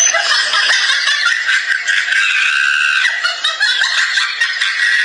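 A long, dense burst of laughter, a comedy sound effect, running without a break.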